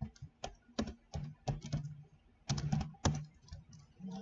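Typing on a computer keyboard: irregular keystrokes in short bursts with brief pauses between them.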